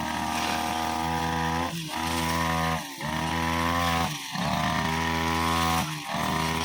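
OGAWA brushcutter engine running at high revs with a blade, its pitch sagging briefly and recovering several times as the blade bites into thick, overgrown grass.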